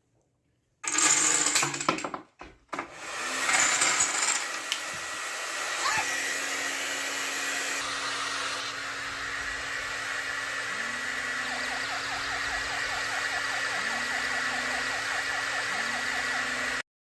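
Loud clattering for a second or two, then a hair dryer running steadily until the sound cuts off abruptly near the end.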